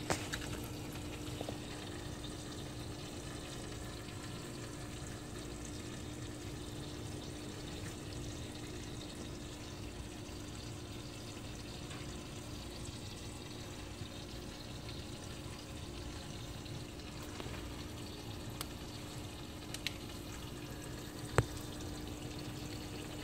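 Pet drinking fountain running: water trickling steadily over a steady pump hum. A few faint clicks come through after the middle, as a cat crunches dry kibble.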